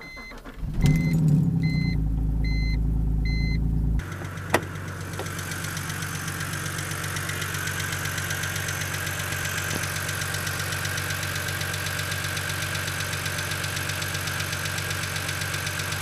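BMW N52 straight-six cold-starting: it cranks and catches about a second in and runs at a fast cold idle while four short warning chimes sound. Then the cold engine idles with a rapid, even ticking from the hydraulic lifters, the N52's well-known lifter tick on a cold engine before oil pressure and heat bring the lifters into adjustment.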